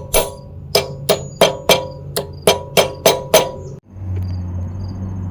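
A hammer lightly tapping a utility knife blade, about ten quick taps at roughly three a second, each with a short metallic ring, driving the blade into the silicone-sealed seam to separate the electric motor's rear cover. The tapping cuts off abruptly near the end, followed by a low steady hum.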